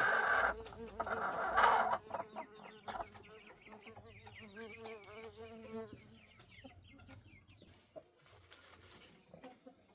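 Domestic hen clucking: two loud harsh outbursts in the first two seconds, then a run of quieter wavering clucks that fades out about six seconds in.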